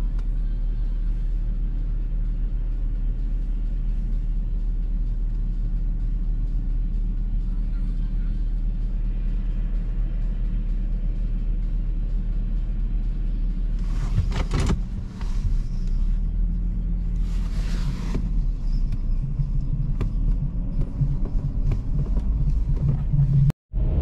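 Steady low engine rumble of heavy machinery running. Two short bursts of hissing noise come about two-thirds of the way in, and the sound cuts out briefly just before the end.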